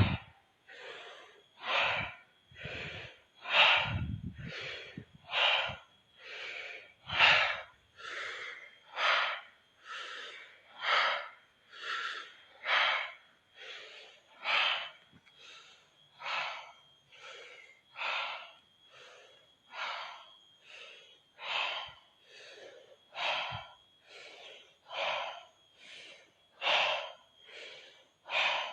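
Deep, forceful breathing in a steady rhythm, about one breath a second: rapid rounds of breathwork (controlled hyperventilation).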